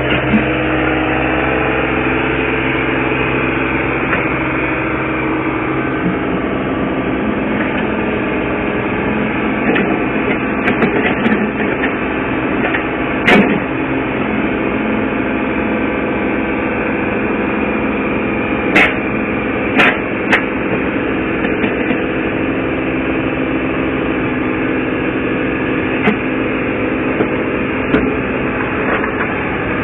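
Cat 303CR mini excavator's diesel engine running steadily under hydraulic load as the machine climbs onto a flatbed trailer. A sharp knock comes near the middle, and a quick run of three knocks follows a few seconds later.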